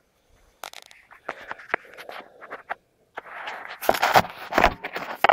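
Handling noise from a camera being picked up and carried: clothing and a hand rubbing against the microphone, with irregular clicks, scrapes and footsteps. The loudest rubbing and thumping comes near the end.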